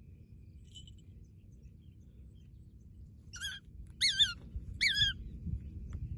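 A small bird calling: three short, high calls about two-thirds of a second apart, each rising then falling in pitch, after a faint call about a second in. A low rumble of background noise runs underneath.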